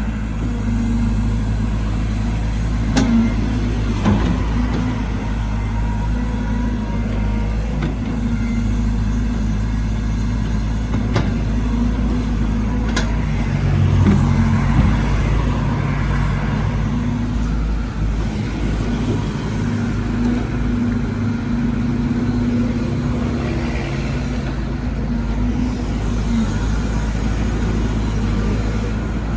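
Caterpillar 313GC excavator's diesel engine running steadily under digging work, with a few sharp knocks.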